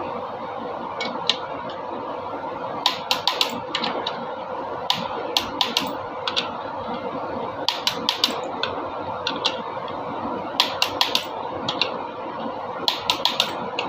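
Sharp metallic clicks from hand tools, coming in quick bursts of three to five every couple of seconds, over a steady hum.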